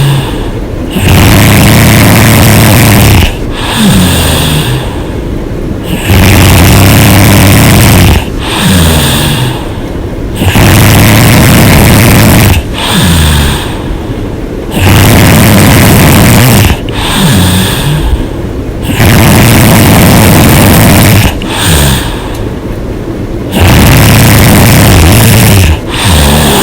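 A woman snoring loudly with her mouth open, in a steady cycle: six long, loud snores of about two seconds each come roughly every four and a half seconds, and each is followed by a quieter breath whose tone falls in pitch.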